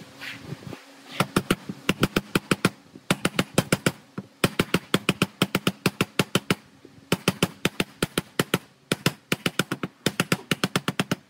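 Rapid, light hammer taps on metal, about six or seven strikes a second, in several bursts broken by short pauses.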